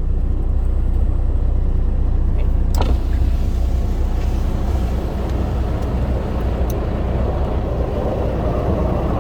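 Steady, loud engine rumble, with a rushing roar that builds toward the end.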